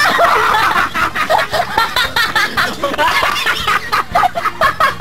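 A person laughing in short repeated snickers, over background music with a steady beat.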